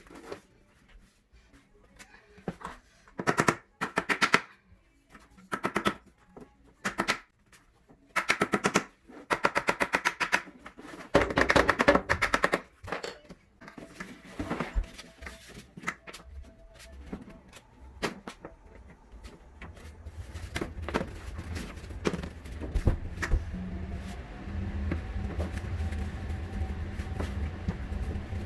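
Bursts of rapid clicking and rattling, each lasting up to a second, from the plastic and fabric parts of a no-tools shoe rack being handled and put together, with scattered single knocks. A steady low hum comes in during the second half.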